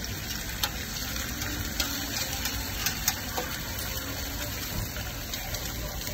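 An egg frying in oil on a flat-top griddle: a steady sizzle with a handful of sharp pops and crackles in the first half.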